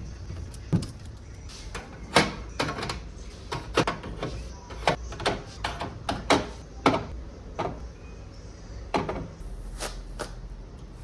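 A series of irregular knocks and clicks, like doors, drawers or objects being handled, over a low steady hum.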